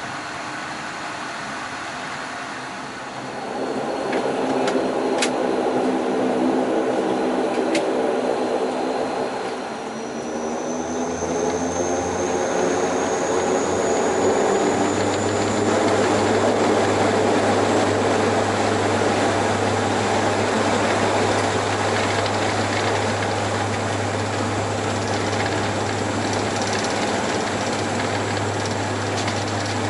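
DHC-8-Q400 turboprop engines and propellers heard from inside the cabin as the plane taxis. The engine sound grows louder about three seconds in, and a high whine climbs from about ten seconds in over a steady low drone. Two light clicks come a few seconds apart.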